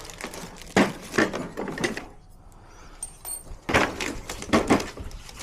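A series of knocks and thuds: a few near the start, a quiet pause, then more about four seconds in.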